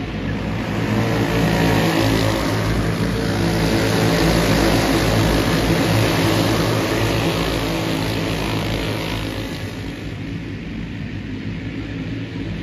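A pack of dirt-track racing karts passing at speed with several engines running together. The sound grows louder about a second in and fades after about nine seconds as they move off around the track.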